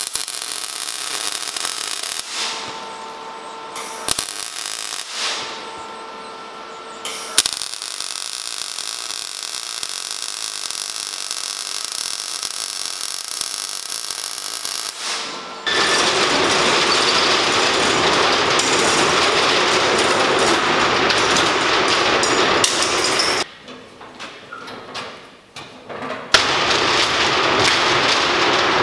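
Metalworking power tools at work on steel: two short spells of a tool running with a steady whine, a longer hissing stretch, then long loud spells of harsh crackling noise, broken by a short pause near the end.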